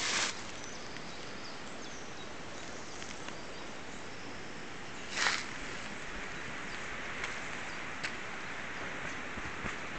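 Outdoor ambience: a steady background hiss with two brief swishes about five seconds apart and a few faint ticks near the end.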